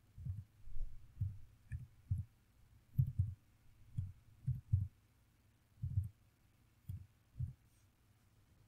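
Computer keyboard being typed on to enter numbers into a data table: about a dozen short, dull, irregular thuds.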